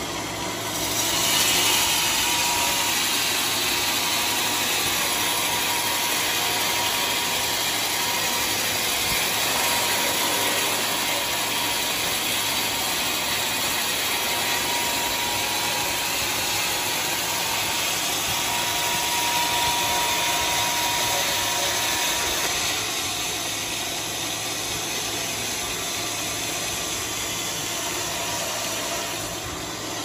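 Large vertical band saw ripping a squared teak log into boards: a steady, dense cutting hiss of the blade in the wood. It grows louder about a second and a half in and gets a little quieter a few seconds after twenty.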